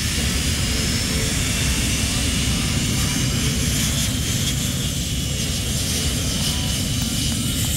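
Airplane engine running steadily, with a faint high whine that drifts slowly in pitch over a heavy low rumble.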